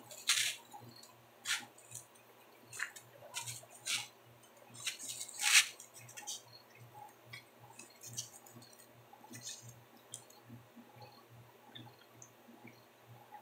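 Handling noises close to the microphone as a plate of pizza is lifted and tilted about: irregular soft rustles and light knocks, the loudest about five and a half seconds in, then only faint small ticks.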